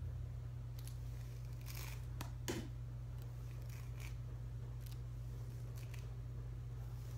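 Faint crisp rustles and a few small clicks of fingers scrunching and twisting a lock of freshly flat-ironed curly human hair, over a steady low hum.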